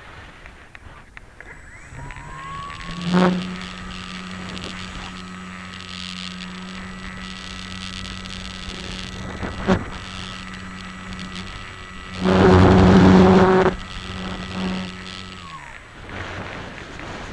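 Radian glider's electric motor and propeller whining: it spins up about two seconds in, holds a steady pitch, then winds down near the end. A loud rushing noise lasting about a second and a half comes after the middle, and there are two sharp clicks earlier on.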